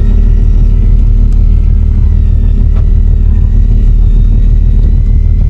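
Fishing boat's engine running steadily: a loud, unbroken low drone, with a faint thin whine above it that wavers slightly in pitch.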